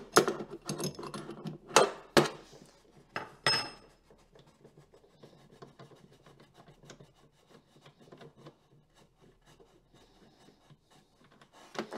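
A metal spark plug tool clinking and scraping as it is worked on the spark plug of a Jetsurf DFI two-stroke engine, with several sharp knocks in the first few seconds. After that there are only faint small handling clicks.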